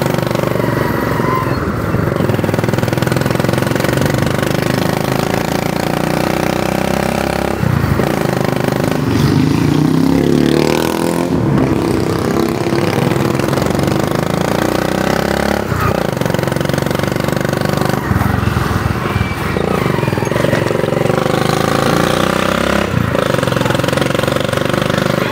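Motorcycle engine heard from the pillion seat while riding, its note rising and falling with the throttle and dropping out briefly a few times.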